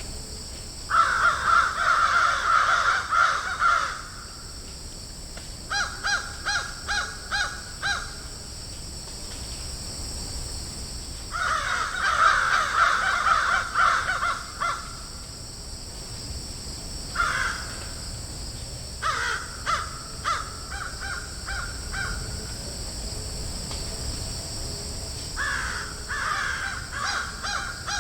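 Several crows cawing in bouts: stretches of dense, overlapping cawing alternate with runs of about five or six short, evenly spaced caws, with pauses of a few seconds between bouts. A steady high hiss runs underneath.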